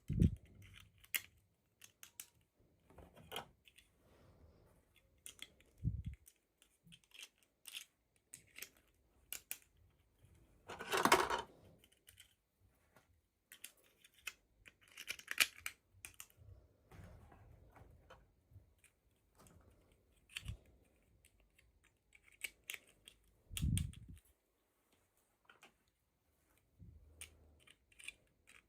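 Handling of toy packaging: irregular small plastic clicks and crinkles, a longer rustle of packaging about eleven seconds in, and a few dull thumps as things are set down.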